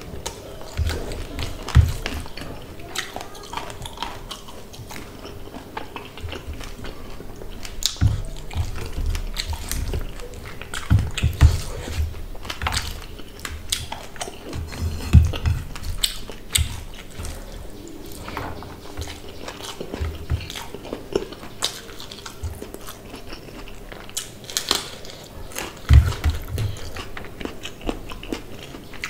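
Close-miked chewing and wet mouth smacks of a person eating rice and fish curry by hand, as irregular clicks and soft thumps, with the squish of fingers mixing rice on a steel plate.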